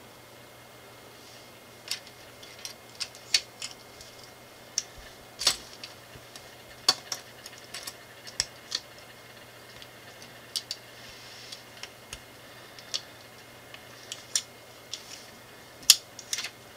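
Irregular sharp clicks and taps of small plastic LEGO pieces being picked up, set down and pressed together, a few of them louder snaps.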